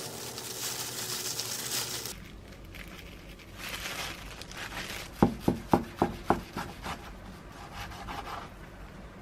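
Cling film and plastic gloves crinkling and rustling as a rice ball is wrapped and squeezed. Partway through comes a quick run of about six sharp knocks, about four a second, on a wooden cutting board.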